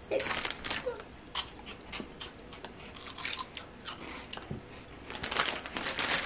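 Crunching of Cheetos corn-snack sticks being bitten and chewed: a run of crisp crackles, thickest about three seconds in and again near the end.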